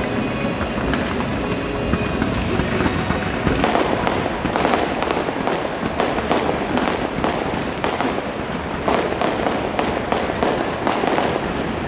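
Fireworks going off in a show: ground-fired fountains and comets rushing up with a steady hiss. From about three to four seconds in, a dense run of sharp pops and crackles sets in and keeps going.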